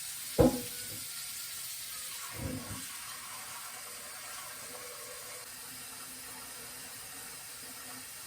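Kitchen tap running steadily as a pot is filled with water for boiling noodles. A sharp knock comes about half a second in and a softer one around two and a half seconds.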